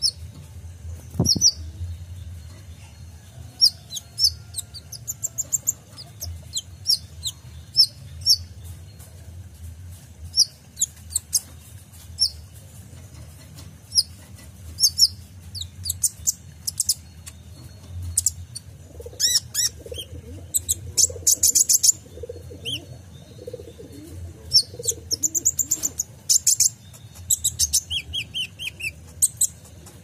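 Caged male copper-throated sunbird (kolibri ninja) singing: scattered sharp, high chirps, a very fast trill a little past the middle, and a short run of lower notes near the end. A soft thump sounds about a second in, over a steady low hum.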